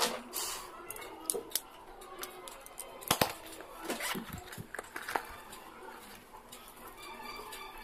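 Small plastic and metal stationery items clicking and knocking as they are handled, picked up and set down, with one sharp click about three seconds in and a few more near the middle.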